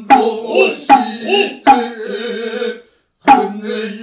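Noh chanting (utai) by a male voice on a low, held pitch, accompanied by four sharp strikes of a kotsuzumi shoulder drum. The chant breaks off for a moment just before the last strike, near the end.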